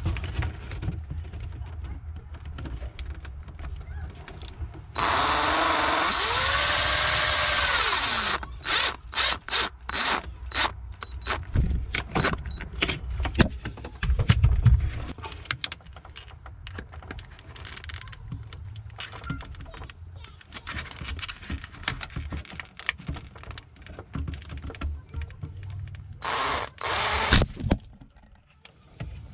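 A cordless drill/driver runs for about three seconds, its pitch rising and then falling. A quick run of clicks and knocks follows as the plastic blower and ribbed hose are handled, and a second short burst of tool noise comes near the end.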